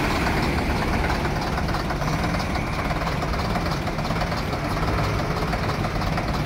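Vintage London bus's diesel engine idling steadily.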